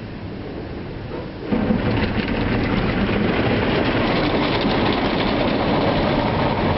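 Automatic car wash machinery, heard from inside the car: a sudden loud onset about one and a half seconds in, then a steady, dense clattering rush of spray and equipment working over the car.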